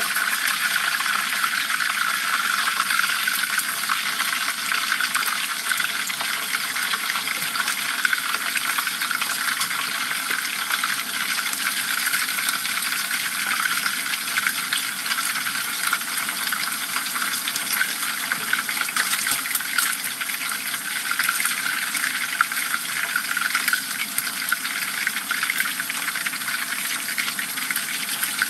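Whole dorado fish deep-frying in hot oil in a pan: a steady sizzle of bubbling oil, thick with small crackles.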